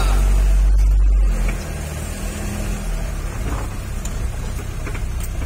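Truck engine running on a rough off-road track, a low rumble that is loudest for about the first second and a half and then settles to a steady drone.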